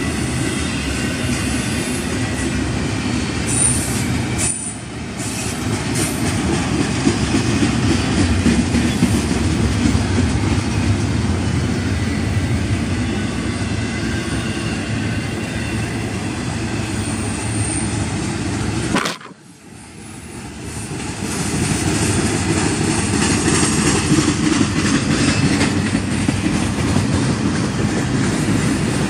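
Double-stack container cars of a Union Pacific intermodal train rolling past close by: a steady rumble and clatter of steel wheels on rail. It dips briefly about four seconds in and drops away sharply for a second or two about two-thirds through, then builds back to full.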